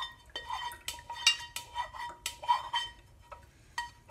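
A stainless-steel saucepan clinking against a wire-mesh strainer as ginger syrup is poured through it. There are about ten light metallic knocks, irregularly spaced, each leaving a short ringing tone.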